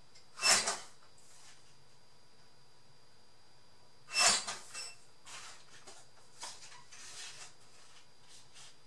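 Paper and craft pieces being handled on a tabletop: two short, louder rustling knocks about four seconds apart, then a run of softer rustles.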